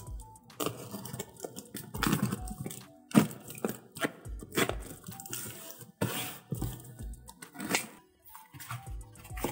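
Packing tape on a cardboard parcel being cut and torn, and the box flaps pulled open: irregular tearing, crackling and scraping strokes, with faint background music.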